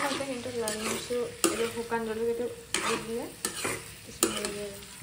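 A metal spoon stirring and scraping chicken and potato pieces around a frying pan over the flame, with the oil sizzling and several scrapes across the pan.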